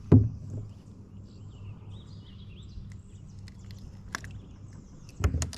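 Birds chirping and singing in the background, with a loud sharp knock just after the start and a few quicker knocks near the end, over a steady low rumble.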